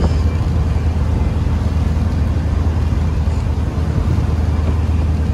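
Motorboat engine running steadily under way, a constant low drone, with wind and water rushing past.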